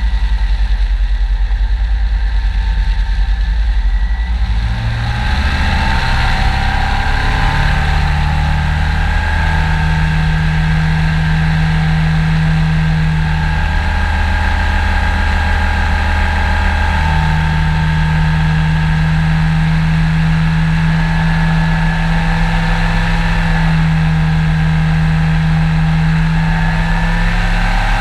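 Powered parachute's engine and propeller running steadily in flight, the note rising about five seconds in and then shifting a little several times with the throttle.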